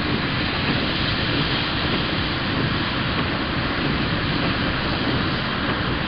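Steady rain falling during a thunderstorm: an even, unbroken hiss.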